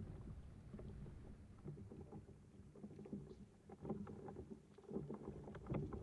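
Faint water lapping against a plastic fishing kayak's hull over a low rumble, with scattered small knocks.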